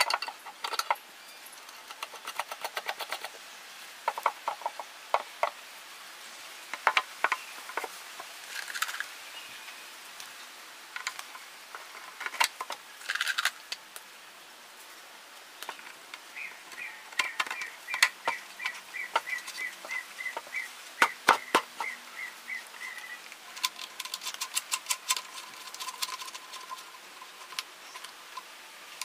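Irregular metal clicks, clinks and rattles of bolts and a steel flat-bar bracket being handled and fastened onto a wooden speaker cabinet, with short runs of rapid ticking.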